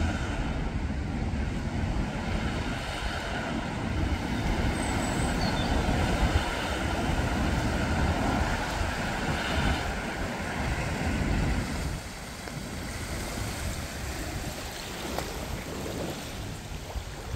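A BMW car pushing slowly through deep floodwater, the water surging and sloshing around it in a steady rush, with wind buffeting the microphone. The sound drops off about twelve seconds in.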